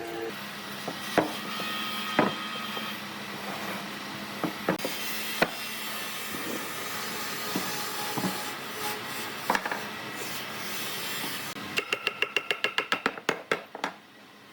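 Workshop hand-tool work on wood: scattered knocks and taps over a steady hiss. Near the end comes a quick run of about a dozen sharp, ringing taps, roughly seven a second.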